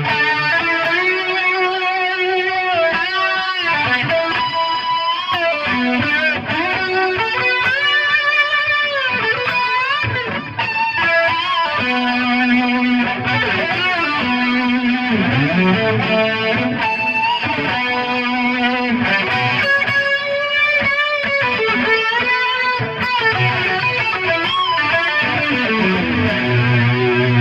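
Electric guitar lead solo through a Big Muff fuzz boosted by a drive pedal, into a Hiwatt amp: sustained distorted single notes with wide string bends and vibrato.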